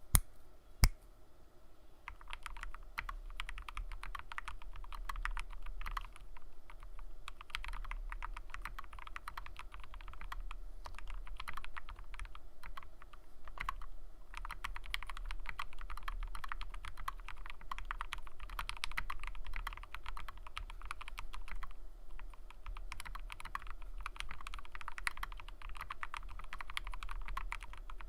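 Fast typing on a mechanical keyboard with lubed Gateron Ink Black linear switches (Krytox 205g0), PBT keycaps and an aluminum 65% case: a dense run of keystroke clacks with a few short pauses. It is preceded by two sharp single clicks right at the start.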